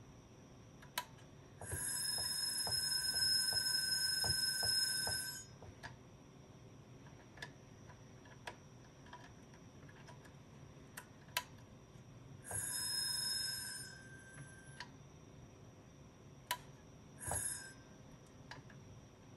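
IBM XT 10 MB hard drive, cover off, straining and failing to spin up: its motor gives a buzzing whine in bursts, about three and a half seconds long at about two seconds in, a shorter one past the middle and a brief one near the end. Ticks come about three a second within the first burst, and the drive's relay clicks between bursts. After 25 years unused, the drive just does not want to start on its own.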